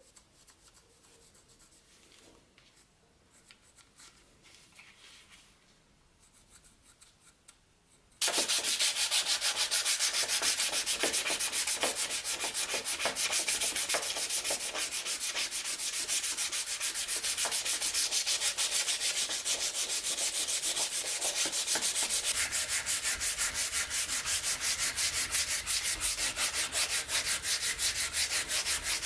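Sanding in quick, even back-and-forth strokes, starting suddenly and loudly about eight seconds in. Before that there is only faint, light scratching.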